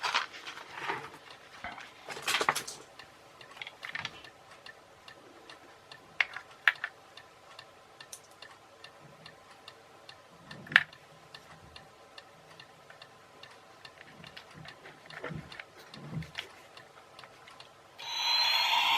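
Small irregular clicks and taps of button-cell batteries and a toy's small plastic battery compartment being handled and closed. About a second before the end, the battery-powered toy helicopter's electronic sound effect switches on, much louder than the clicks.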